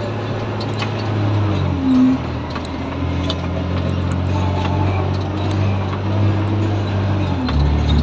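Caterpillar 730C articulated dump truck's diesel engine running under load, heard from inside the cab. The engine note steps down in pitch about two seconds in and again near the end, with faint clicks throughout.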